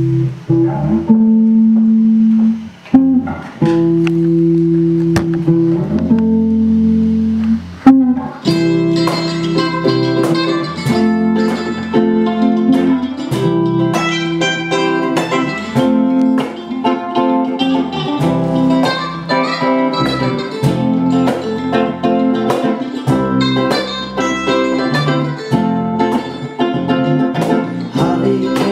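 A live band playing an instrumental passage on electric guitar and electric bass: held chords and long bass notes at first, then from about eight seconds in a busy run of quickly picked notes.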